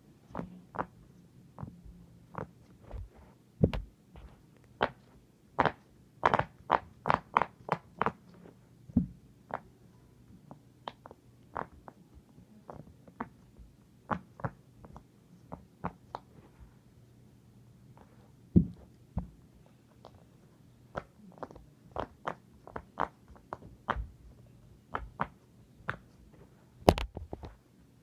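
Silicone pop-it fidget toy having its bubbles pressed, popping in a string of sharp, irregular clicks, now and then in quick runs of several pops a second.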